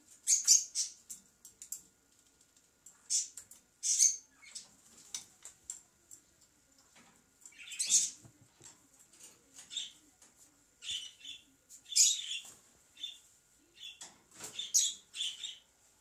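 Pet parrots chirping: short, high chirps and squeaks scattered irregularly, a handful of them much louder than the rest.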